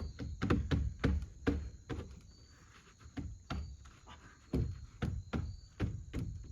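An irregular run of heavy knocks and thuds on wood, about two or three a second.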